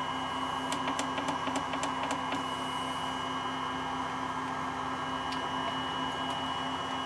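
Steady electrical hum with a quick run of small, sharp clicks about a second in and a couple more later, as small parts are handled at a soldering bench.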